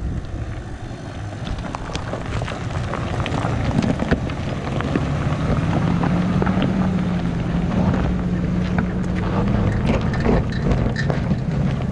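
SUV engine pulling slowly up a rocky dirt trail, a steady drone that grows louder as the vehicle passes close by, with tyres crunching and popping over loose rock and gravel.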